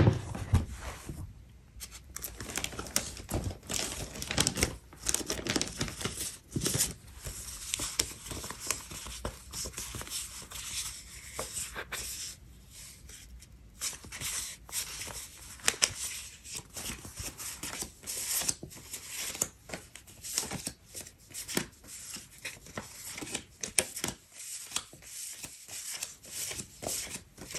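Paper sticker sheets rustling and crinkling as they are handled and leafed through, in many short, irregular rustles.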